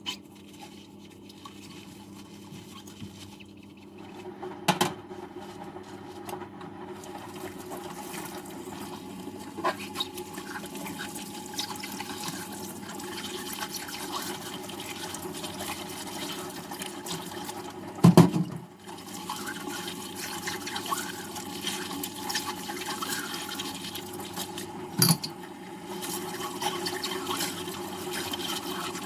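Water running and splashing in a kitchen sink while dishes are washed, the flow picking up a few seconds in. A few knocks of dishes against the sink, the loudest about halfway through.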